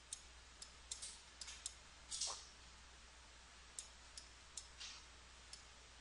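Scattered computer mouse clicks, about a dozen sharp single clicks at irregular intervals, over a faint steady low hum, with one brief louder hiss about two seconds in.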